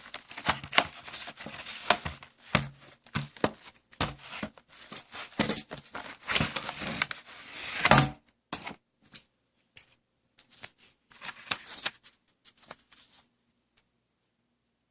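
Memory-kit packaging being handled and opened by hand: crinkling, rustling and sharp clicks, dense for the first eight seconds, then a few scattered clicks that stop about thirteen seconds in.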